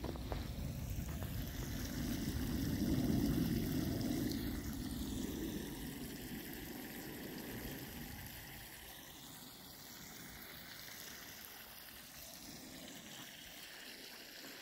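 Water running, swelling a couple of seconds in and then dropping to a quieter steady run after about eight seconds.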